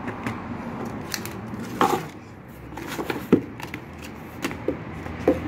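Handling noise from unboxing a phone: scattered light clicks and rustles, with a few sharper knocks about two and three seconds in, as the phone, its coiled cable and the cardboard box and packaging are moved about.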